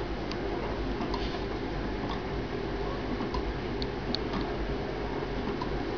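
Home-made twin-cylinder low-temperature-difference Stirling engine turning very slowly, its moving linkage giving light, irregular ticks about once or twice a second over a steady low hum.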